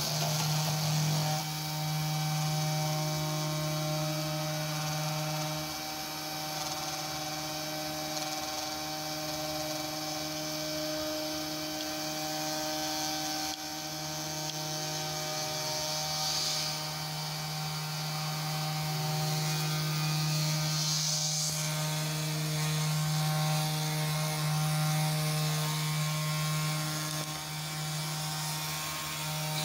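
CNC2418 desktop router's spindle running steadily while a 0.8 mm corn-cob end mill cuts a circular hole into a copper-clad PCB blank on its first, shallow pass. Under the steady spindle hum there are fainter tones that step up and down in pitch as the machine moves along the circle.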